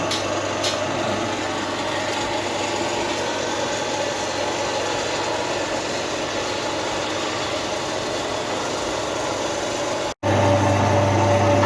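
Cassava flour milling machine with a cyclone collector running steadily, a continuous mechanical whirr. It cuts out for an instant about ten seconds in, then carries on louder with a deeper hum.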